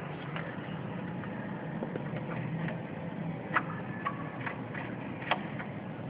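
A steady low hum with a few scattered sharp clicks; the loudest clicks come about three and a half seconds in and again just past five seconds.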